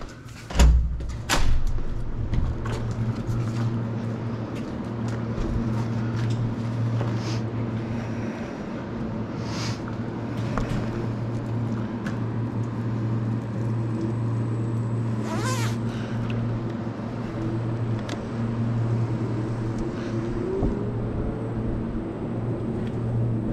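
Ninebot electric kick scooter riding over a concrete floor, a steady low hum and rumble from the motor and tyres. A door bangs shut with a thud and clicks about a second in, and there are a few scattered clicks and rattles.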